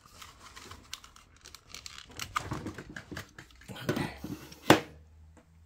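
Plastic power-supply connectors and a power supply tester being unplugged and handled, with cables rustling against the metal case: irregular clicks and rattles, and one sharp click near the end.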